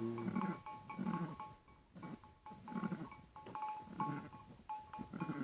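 A sheep bleating in short, low calls, about five of them, roughly a second apart.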